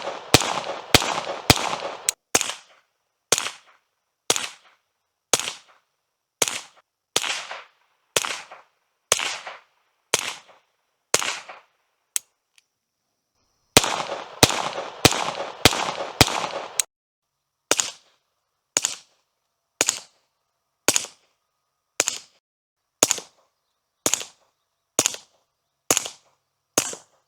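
Suppressed .22 LR rimfire firing a quick string of about thirty shots, each a sharp crack with a short fading tail, with a pause of about a second and a half midway. The Hush Point 22 silencer contains the muzzle blast, so much of each report is the supersonic crack of the high-velocity rounds downrange.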